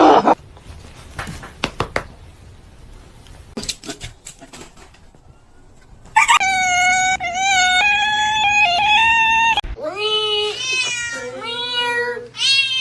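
A few scattered clicks and knocks, then a cat yowling in one long drawn-out call. After that comes a run of shorter, lower meows, each rising and falling.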